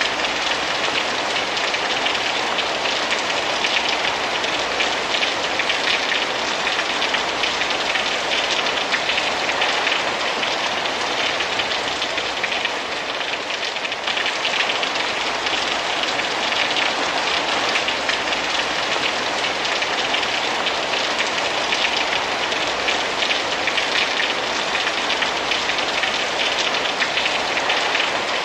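Steady rain falling on grass and splashing into a muddy puddle, a dense, even hiss.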